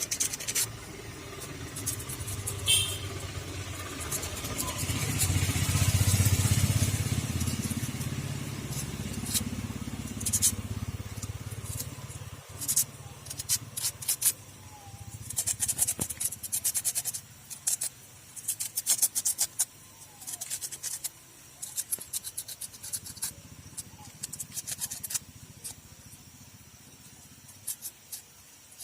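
Short, irregular scraping strokes of a spark plug being cleaned of carbon deposits, bunched in the second half. In the first half, a vehicle's low rumble swells and fades.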